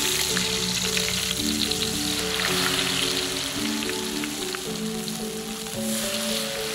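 Spring onion leaves in flour batter frying in hot oil in a wok, a steady sizzle with fine crackles. Melodic background music plays over it.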